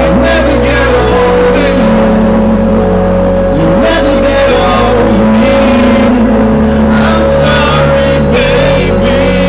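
Loud electronic trance music played over a club sound system: sustained bass notes shift every second or two under a steady held synth tone.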